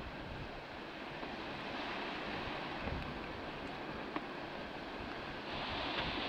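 Steady noise of sea surf, with wind on the microphone; it gets louder and hissier about five and a half seconds in.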